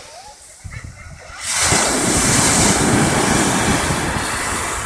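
Surf on a sandy beach: after a brief lull, a wave breaks about a second and a half in and its foam rushes loudly up the shore.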